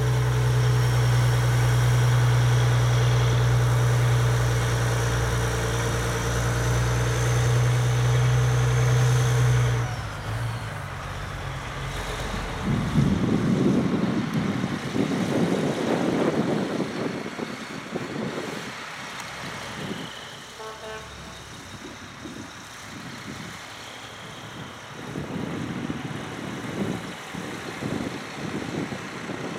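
Heavy truck engine running as a rig moves off: a loud, steady low drone for about ten seconds that stops suddenly, then fainter, uneven engine rumble from trucks moving across the field.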